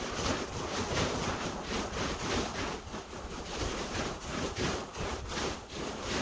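Wind and surf on a pebble shore, a rushing noise that pulses about four or five times a second.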